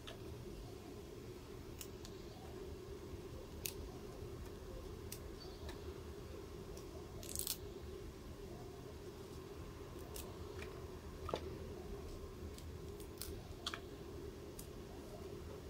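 Small kitchen knife cutting broccoli florets off the stalk: scattered crisp clicks and snips, with one longer rasping cut about seven seconds in, over a steady low hum.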